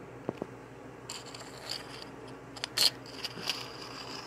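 Handling noise from small plastic toy figures and a tin button badge being picked up and moved over a floor: rubbing and scraping with a few light clicks, the sharpest one near the end.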